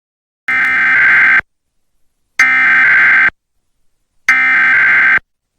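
Emergency Alert System SAME header: three harsh, buzzing digital data bursts, each about a second long with about a second of silence between them, the signal that opens an EAS alert or test.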